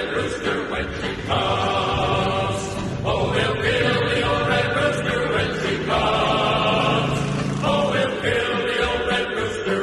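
Background music: wordless, choir-like voices holding long notes, changing chord every couple of seconds.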